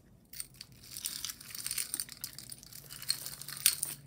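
A tangle of costume jewelry being handled and pulled apart: many small clinks and jingles of metal chains and pieces, with some rustling, starting just after the start and with one sharper click near the end.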